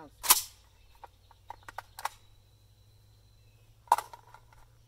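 A single shot from a suppressed AK-47 firing 196-grain Brown Bear subsonic 7.62x39, followed by a few light clicks and, near the end, one sharp knock.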